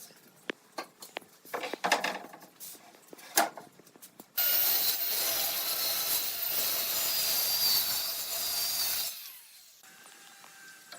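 Wood being handled with scattered knocks and taps, then a power tool running steadily on wood for about five seconds, starting and stopping abruptly.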